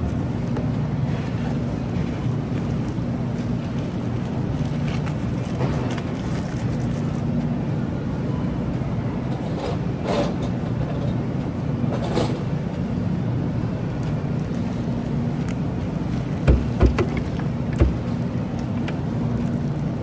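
Steady low mechanical hum of machinery, with a few sharp knocks close together near the end.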